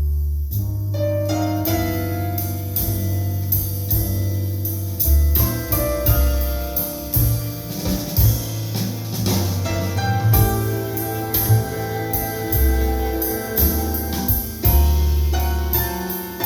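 Jazz piano trio music played back over Definitive Technology Mythos ST hi-fi speakers: piano melody over deep upright-bass notes, with steady cymbal strokes keeping time.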